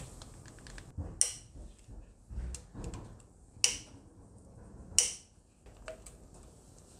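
Small steel engine parts clinking and clicking as the timing-chain auto tensioner and its bolts are taken off the front of a Honda K24 engine. Three sharp metallic clinks with a brief ring, about a second in, at about three and a half seconds and at five seconds, with lighter clicks between.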